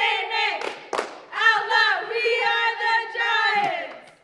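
Group of teenage cheerleaders shouting a cheer in unison, with two sharp beats near the start and long drawn-out shouted words that stop just before the end.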